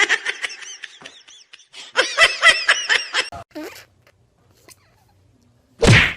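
A person laughing in two runs of quick, repeated bursts, then a short loud noise near the end.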